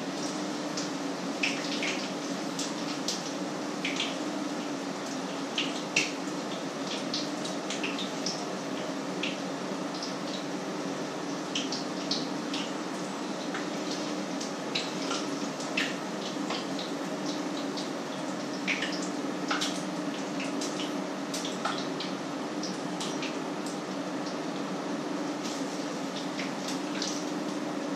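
Food frying in a pan on an electric stove: a steady sizzle broken by irregular crackles and pops, over a steady low hum.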